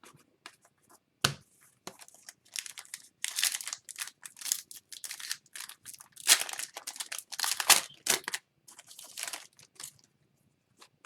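Hockey card pack wrapper being torn open and crinkled: a sharp click about a second in, then a run of irregular rustling, crinkling bursts.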